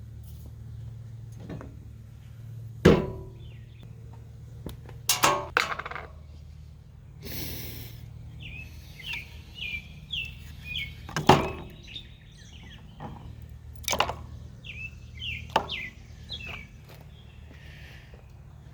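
Small birds chirping in short repeated calls over a low steady hum, broken by about half a dozen sharp knocks, which are the loudest sounds.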